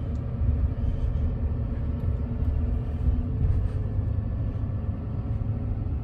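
Steady low rumble of engine and road noise inside a pickup truck's cab while driving along a highway.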